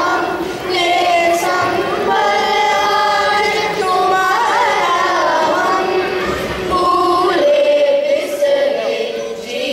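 Children's chorus singing together into stage microphones, with a long held note near the end.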